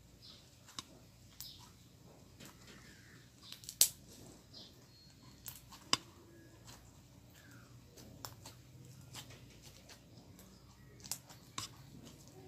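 Scattered sharp clicks and small crackles, like things being handled at close range, with the loudest click about four seconds in and another about six seconds in.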